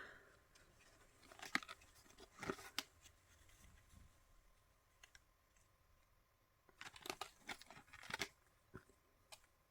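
Faint paper rustling and light handling clicks as a handmade paper album is handled and its pages turned, in a few short bursts with a cluster near the end.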